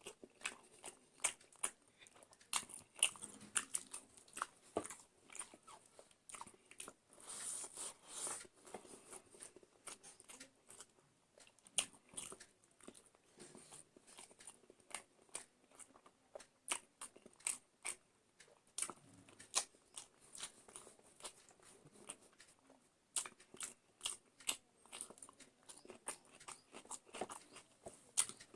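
Close-up sounds of a person eating curry, rice and salad: irregular chewing, mouth smacks and bites, with many sharp clicks.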